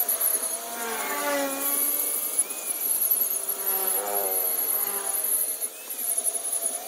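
A power tool's motor running, its whine dipping in pitch and coming back up a couple of times as it takes and releases load.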